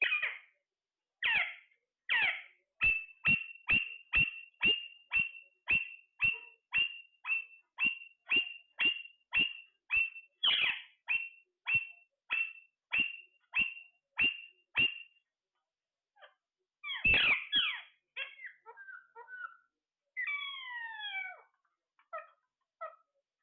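Parrot calling: a long run of short, identical chirps at about two a second. These are followed by a louder squawk and a few varied whistled calls that fall in pitch.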